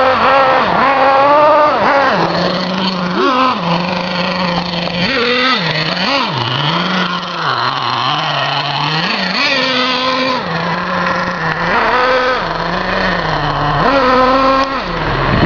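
Simson S50 moped's small two-stroke engine being ridden and revved, its pitch climbing and dropping again and again every second or two.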